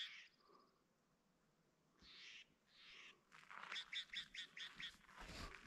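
Faint bird song: a few quick high chirps at the start, then a longer run of rapid repeated chirps past the middle. Footsteps crunch on crusted snow in between.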